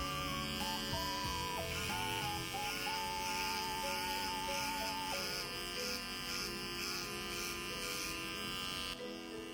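Electric pet hair clippers buzzing steadily under background music, then cutting off suddenly near the end.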